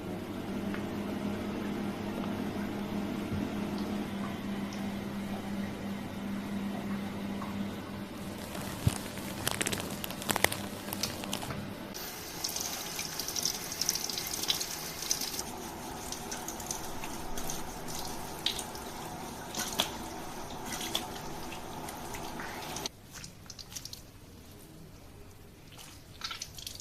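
Water running into a shampoo basin while hair is washed and rinsed. A steady hum sits under it for the first half, and a brighter hiss of spray lasts a few seconds in the middle. The sound drops quieter near the end.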